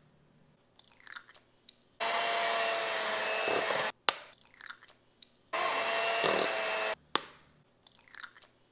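Electric beater motor running twice, for a second or two each time, as an egg is beaten into thick choux pastry dough; it starts and stops abruptly, with a few soft taps in between.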